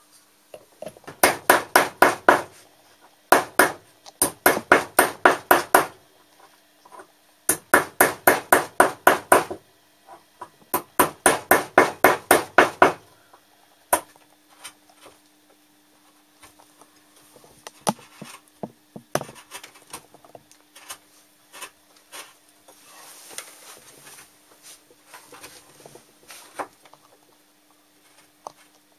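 Wood-carving gouge being driven into a block of wood by quick mallet taps, in four runs of about ten sharp knocks at some six a second. After that come scattered single knocks and faint scraping as the gouge cuts by hand.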